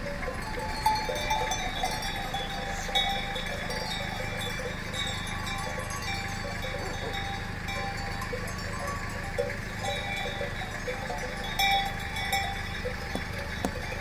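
Many bells on a large flock of goats ringing and clinking without a break as the herd walks along, with a few louder clanks, over a steady low rumble.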